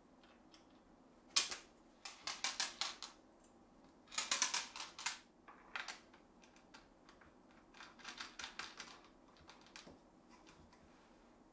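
Runs of quick light clicks and taps from hands working the fittings of a plywood circular-saw crosscut jig with aluminium rails. One sharp click comes about a second in, then clattering runs follow, the densest and loudest a little past four seconds, and a softer run near eight seconds.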